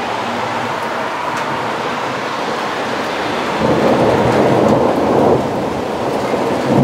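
Steady downpour of rain. About halfway through, a roll of thunder swells up and rumbles for a couple of seconds before easing back into the rain.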